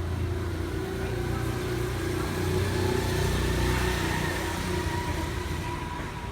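A motor vehicle's engine running as it passes: a low hum with a faint whine that swells to a peak midway and then fades.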